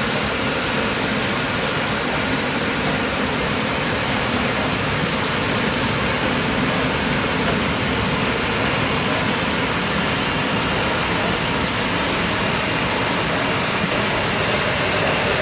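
Steady machine noise from a C.R. Onsrud 381G18CD CNC router running, with a few light ticks scattered through it.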